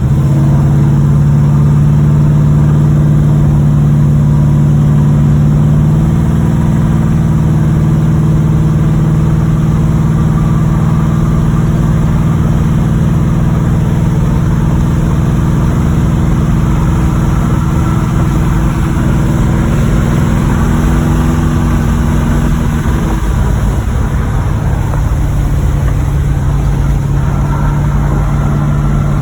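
1986 Chevrolet Monte Carlo SS's V8 engine running steadily as the car drives, its pitch shifting a few times with speed. The engine has a bottom-end rod knock.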